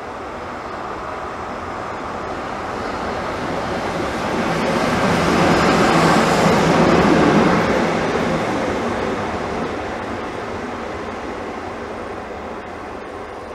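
Pesa Gamma diesel locomotive moving slowly past close by: engine and running noise swell to a peak about halfway through and then fade.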